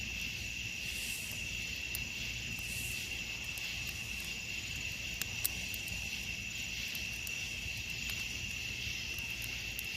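Night chorus of crickets and other insects: a continuous high trill, with a few faint ticks and snaps over it.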